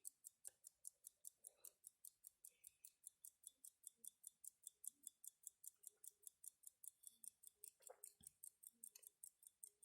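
Zenith cal. 19.5 pocket watch movement ticking quietly and very evenly, about five ticks a second. There is one faint knock about eight seconds in.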